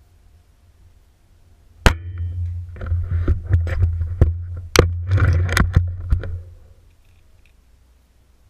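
Gamo Whisper suppressed air rifle firing a single shot about two seconds in, a sharp report with a brief ringing after it, followed by several seconds of uneven clicks and knocks as the rifle is handled.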